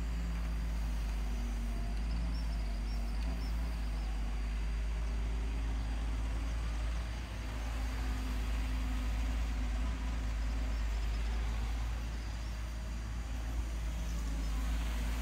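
Wheeled excavator's diesel engine running under load while it digs, its pitch shifting up and down as the boom and bucket work.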